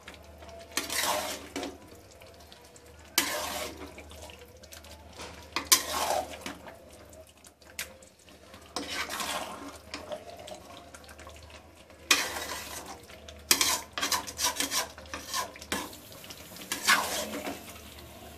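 Metal spatula stirring chicken in thick, wet masala gravy in a large aluminium pan: separate scraping, squelching strokes every two to three seconds as the chicken fries.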